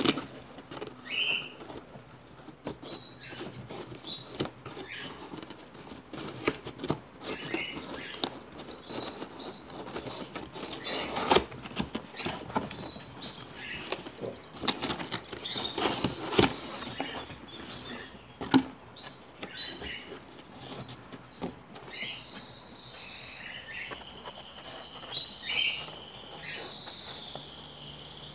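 Small birds chirping in short, repeated calls, with a longer warbling song near the end, over rustling and scattered knocks as a cardboard box holding a potted plant is handled. Three louder knocks come in the middle.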